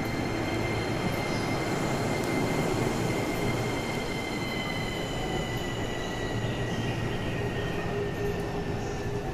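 Orange-and-green-striped JR East commuter electric train pulling out from a station platform: a steady rumble of wheels and motors with high whining tones held throughout, sinking slightly in pitch.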